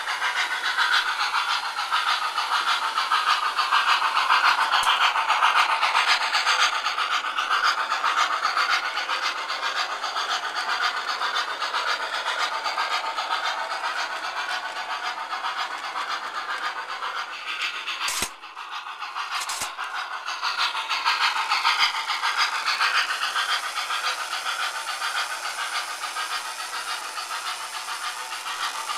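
O-gauge model steam locomotive and train running on three-rail track: a steady rolling clatter with hiss. The sound drops out briefly about eighteen seconds in and then picks up again.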